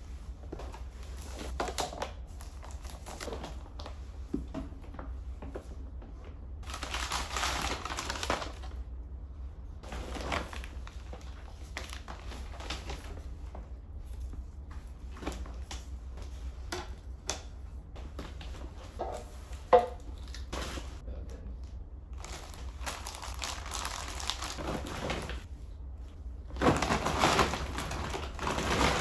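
Handling noises: several bursts of rustling and crinkling, with scattered light clicks and knocks and one sharper click about twenty seconds in.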